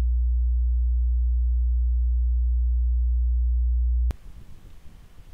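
A deep, steady electronic sine tone, a bass test hum, held for about four seconds and then cut off sharply, leaving only faint background hiss and low rumble.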